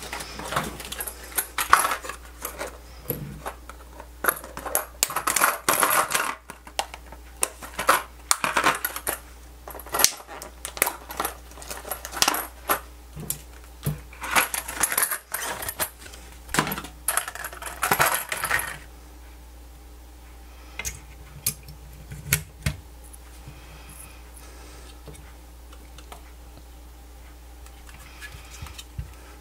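Small hard plastic and metal parts clicking and clattering as they are handled, in quick irregular clusters for most of the first twenty seconds, then only a few scattered clicks.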